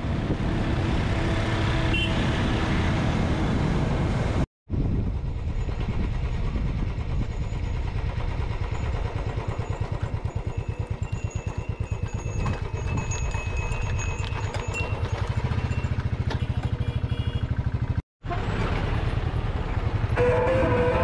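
Motorcycle engine running steadily under way, heard from the rider's own bike, with wind and road noise. The sound drops out twice for a moment, and music comes in near the end.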